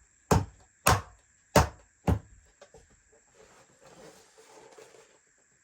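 Four sharp knocks within the first two seconds, then faint handling and scraping, as a speaker's parts are fitted back together.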